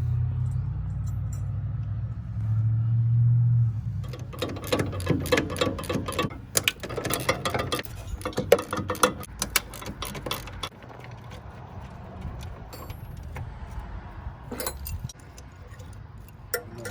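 Metal tools and suspension parts clinking and clanking in a quick, busy run while the spring compressor is worked, with a few stray clicks after. A steady low hum sits under the first few seconds.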